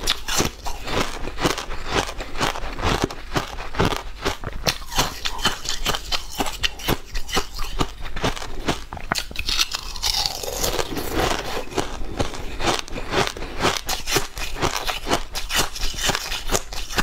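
A person biting and chewing a crunchy red, sugar-crusted candy ring: a dense, steady run of sharp crunches, several a second.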